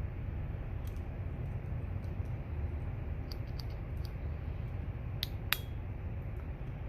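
Light metallic clicks of a Victorinox Swiss Army knife's tools being handled, scissors and blades moving and snapping on their springs: a few scattered ticks, then two sharper clicks about five seconds in, over a steady low hum.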